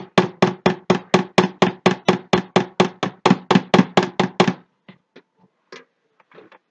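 Electric stick blender run in rapid on-off pulses, about four or five a second, mixing cold-process soap batter in a plastic pitcher. The pulsing stops about four and a half seconds in, leaving a few faint knocks and clicks.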